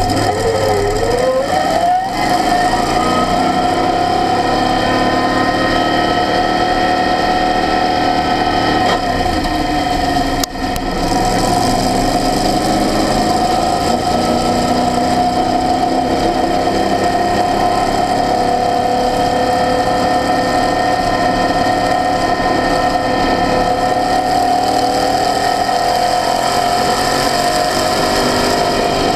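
Apexocet open-wheel track car's engine heard onboard, accelerating hard with the pitch climbing and dropping sharply at gear changes about two seconds and about ten seconds in. It then holds a steady high engine note at speed.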